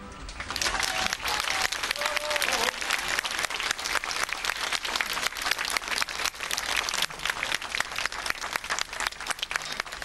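Audience applause: dense clapping that builds up within the first second, then holds steady.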